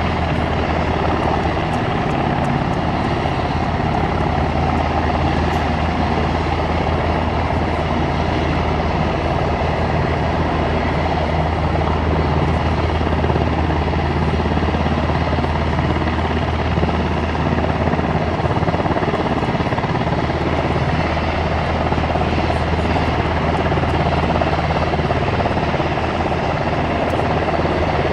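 Helicopter running, a steady drone of rotor and turbine engine that does not change.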